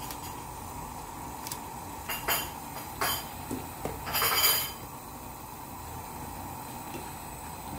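Kitchen tongs clinking against the pan while stirring noodle soup: a few sharp clinks, then a longer clatter a little after four seconds in, over the steady sound of the broth simmering.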